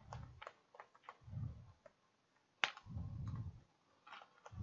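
Sparse keystrokes on a computer keyboard: a few scattered clicks, one sharper than the rest about halfway through, with faint low rumbles in between.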